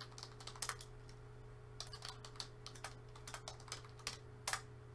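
Typing on a computer keyboard: irregular runs of quick key clicks over a faint steady hum.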